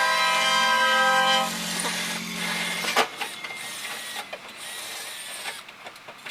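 Train horn blowing a long, loud multi-tone blast that cuts off about a second and a half in, with a lower tone carrying on until about three seconds in. A single sharp knock follows.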